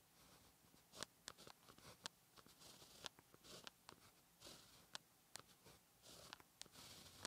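Faint pen-on-paper writing sounds: sharp little taps as the tip touches down, and short scratchy strokes as a Chinese character is written stroke by stroke.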